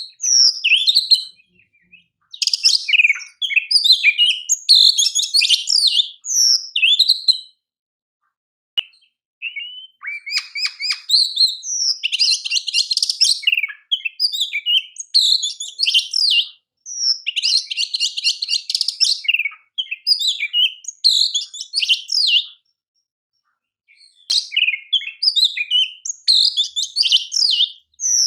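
Oriental magpie-robin (kacer) singing loudly: varied phrases of quick whistled and chirping notes, twice breaking into a harsh rapid rattle, with a couple of short pauses between bouts.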